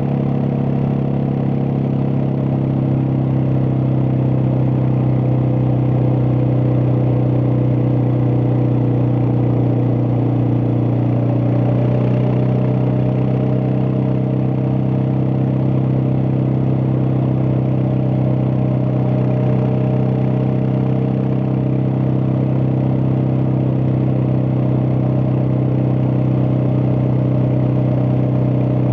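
Suzuki DR650's single-cylinder four-stroke engine running steadily while the motorcycle is ridden, its pitch shifting slightly about twelve seconds in.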